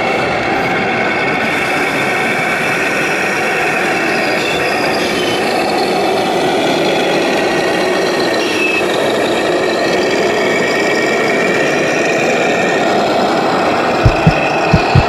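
Radio-controlled Scania tractor-trailer running with its simulated diesel engine sound, a steady drone. A few deep booms near the end.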